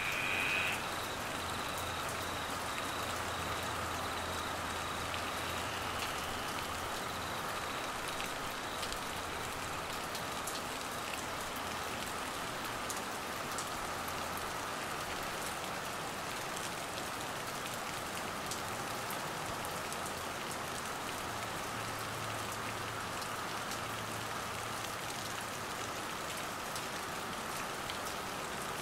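Steady heavy monsoon rain pattering on grass, leaves and floodwater, with a faint steady chirring of crickets underneath. A brief high-pitched call comes right at the start.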